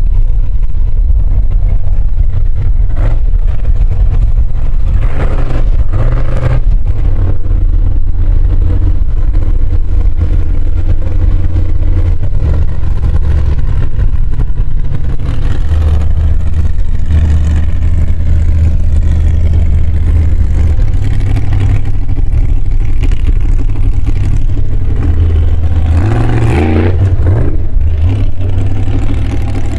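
Formula Offroad buggy's engine revving as it climbs a steep slope, over a loud, constant low rumble. Sharper bursts of revving come about five seconds in and again near the end.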